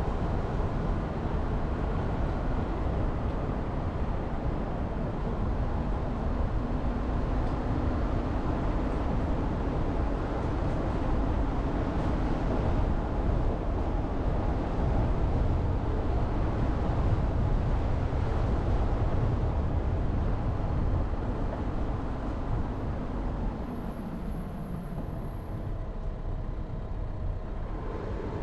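Jeep Renegade driving: steady engine and tyre noise, easing off somewhat near the end.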